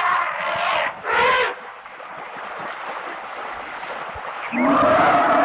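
African bush elephant calling: two short, loud calls in the first second and a half, then a longer, louder call starting near the end.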